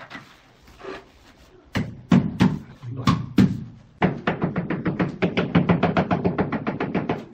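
Ceramic wall tile being tapped into its adhesive bed to seat it: a few heavy knocks about two seconds in, then a quick, even run of taps, about six a second.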